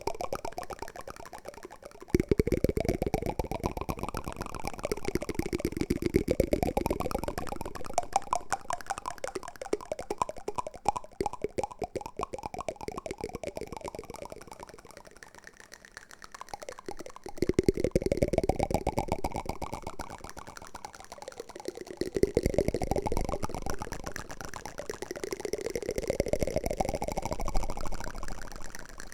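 Wooden spoon ASMR trigger sounds: a crackly, grainy scraping made of many tiny clicks, coming in about five passes that each rise in pitch.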